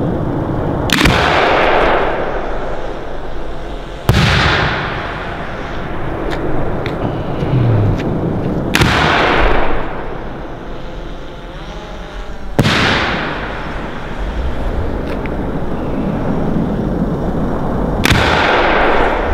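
4-inch aerial display shells being fired from mortars and bursting overhead: five heavy booms a few seconds apart. Each boom is followed by a long echo that fades away, with the last one coming from a mortar lift charge.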